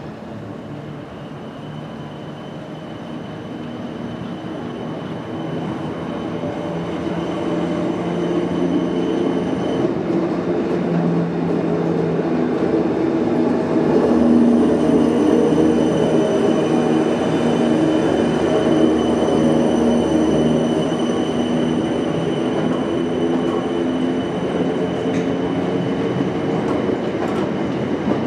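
South Western Railway Class 455 electric multiple unit pulling into the station alongside the platform, growing louder as it draws near. A high-pitched whine runs over the train noise, breaks off about ten seconds in and returns a few seconds later.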